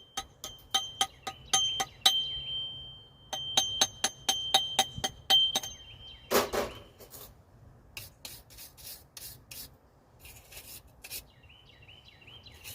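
Rapid metal-on-metal tapping, about five strikes a second in two runs. Each strike rings with a clear, high tone that hangs on briefly after each run. A single louder, duller hit comes a little past halfway, followed by sparser taps.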